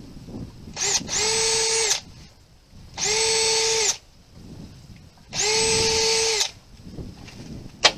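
Cordless drill run in three trigger pulls of about a second each, its motor whining at a steady pitch as it works into a pine board. A short sharp click comes near the end.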